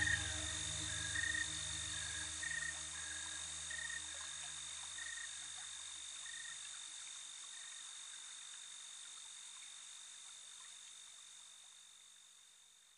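Ambient soundtrack fading out at its end: a low drone dies away early while a paired cricket-like chirp repeats about every second and a half, over a steady high whine and hiss. The chirps stop about halfway through and the rest keeps fading.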